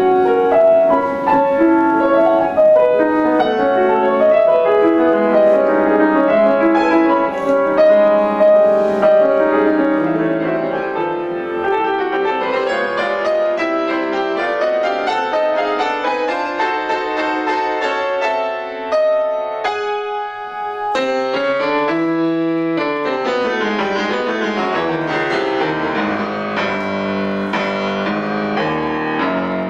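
Solo grand piano playing classical music. About twenty seconds in it briefly drops back, then a new passage begins.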